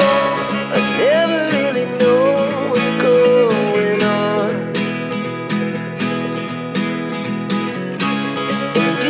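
Background pop music: acoustic guitar accompaniment with a sung melody line.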